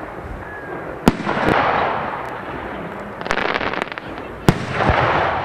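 Aerial firework shells bursting with two sharp bangs, about a second in and again near the end, each followed by a second or so of rushing noise. A short run of crackles comes between them.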